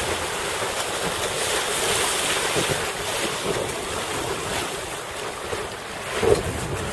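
Wind on a windsurfer's helmet camera microphone, a steady rush over the sound of choppy water, with a brief louder burst about six seconds in.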